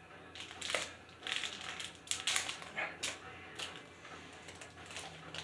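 Crinkling of a Ghirardelli chocolate square's wrapper as it is peeled open by hand, in irregular crackles with several sharper rustles.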